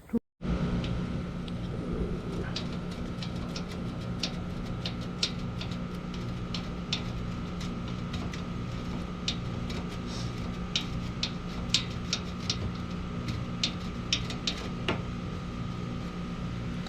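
A steady machine hum with a low and a higher steady tone, overlaid by irregular small clicks and taps.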